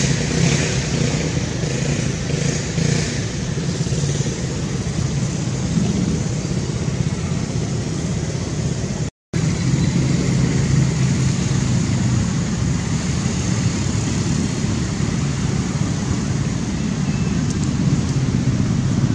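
Steady background hum of road traffic, with a brief dropout to silence about nine seconds in.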